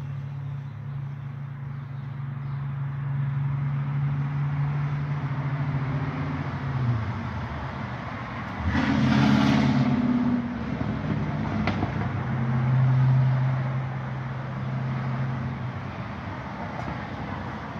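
Road traffic: a steady low motor-vehicle engine hum that fades about seven seconds in and returns, with a louder vehicle going by about halfway through.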